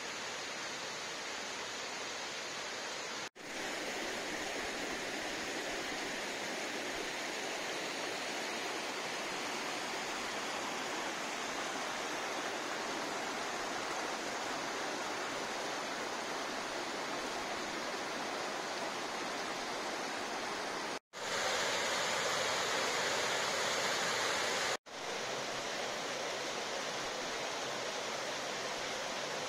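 Mountain stream rushing over rocks: a steady rush of water. It drops out briefly three times, and for a few seconds past the middle it is louder and brighter.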